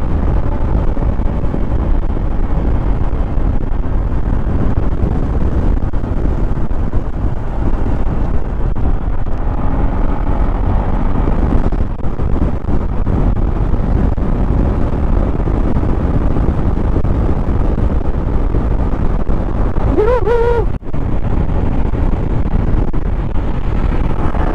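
Steady wind buffeting and heavy rain on the microphone of a Honda ADV 150 scooter riding through a downpour, with the scooter running beneath it. A brief rising-and-falling tone cuts through shortly before the end.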